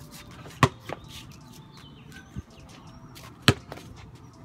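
Basketball impacts: two sharp bangs, one under a second in and another about three and a half seconds in, with a couple of softer knocks between. Faint bird chirps.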